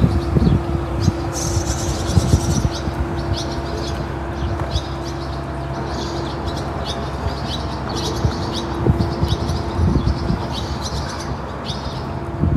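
Small birds chirping in quick repeated calls, over a low rumble and a steady hum.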